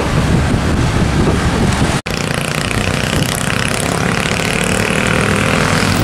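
Tour buses' diesel engines running as they pass on the road, with traffic noise. The sound breaks off briefly about two seconds in, then another bus comes on with a steady engine drone.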